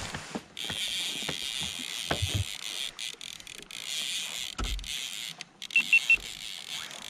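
Three quick, high electronic beeps about six seconds in, the loudest sound, over a steady hiss, with a couple of dull knocks earlier.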